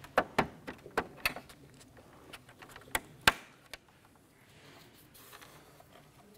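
Plastic push-pin clips being pressed through a plastic bumper cover into a grille: a run of sharp clicks and snaps over the first few seconds, the loudest about three seconds in, then only faint handling of the plastic parts.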